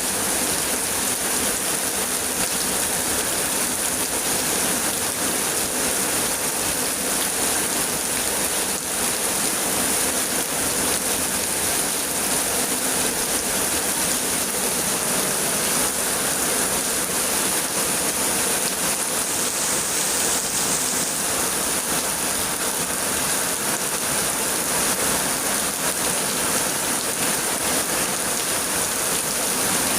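Heavy rain pouring down steadily, a dense even hiss of rain falling on surfaces.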